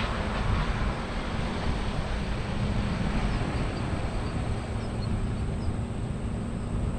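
Heavy diesel farm machinery running steadily: a low engine hum under a constant mechanical noise.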